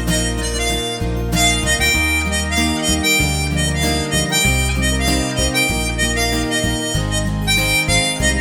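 Harmonica playing a slow melody, one sustained note after another, over a backing with low bass notes.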